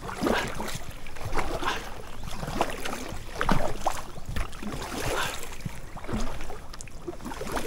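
Double-bladed kayak paddle strokes splashing in river water, one irregular splash after another as the paddler works hard against a strong current pulling toward a reservoir intake.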